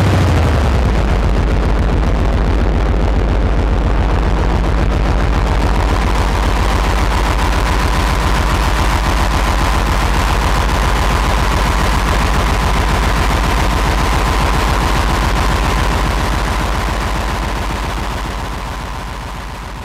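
Elektron Digitone synthesizer playing a harsh noise-drone: a very fast stutter of pulses over a steady low drone, with a steady high tone coming in about six seconds in. The sound fades out over the last few seconds.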